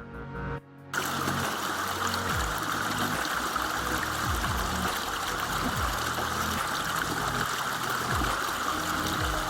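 Background electronic music with a steady rush of flowing stream water that comes in about a second in and carries on under the music.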